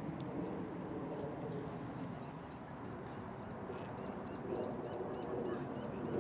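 A bird calling a steady run of short high chirps, about three a second, clearest in the second half, over low steady outdoor background noise.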